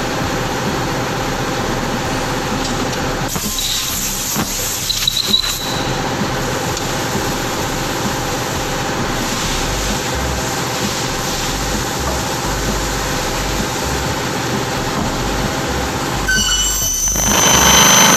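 Aluminium cut-off circular saw running steadily, with brief high squeals about four and five seconds in. Near the end the blade bites into the aluminium extrusion, and the sound swells into a loud, high-pitched metallic screech.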